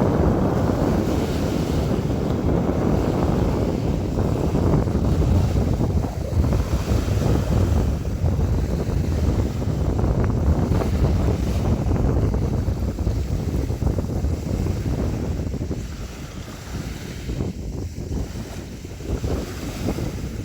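Sea waves washing and splashing in a continuous rush, easing off for a few seconds near the end before building again.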